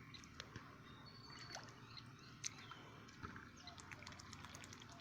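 Faint small splashes and trickles of water as a pet goose dabbles and splashes in a shallow puddle, with a quicker run of small splashes near the end.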